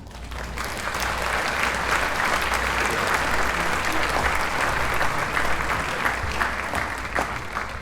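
Applause from a crowd, dense clapping that swells over the first second and then holds steady.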